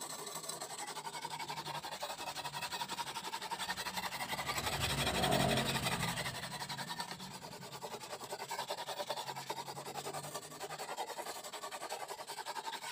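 Coarse whetstone rubbed rapidly back and forth along the curved steel blade of an egrek, an oil palm harvesting sickle, in a steady run of rasping scrapes. This is the coarse first stage of sharpening, grinding the edge flat before the fine stone.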